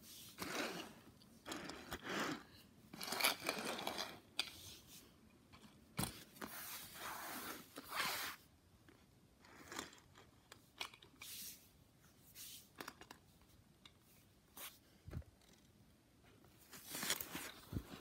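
Die-cast toy cars being pushed and handled on a fabric play mat: irregular scraping and rustling in bursts, with a couple of sharp clicks.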